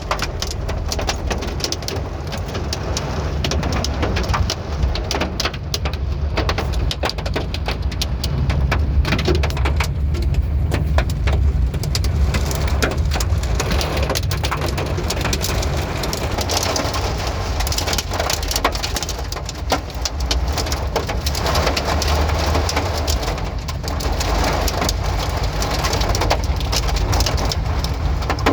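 Heavy rain falling steadily, a dense patter of drops over a continuous hiss, with a steady low rumble underneath.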